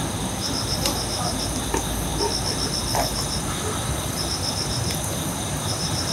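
Crickets chirping: rapid, even pulses in trains of about a second, with short pauses between, over a steady high-pitched insect drone. A few faint clicks.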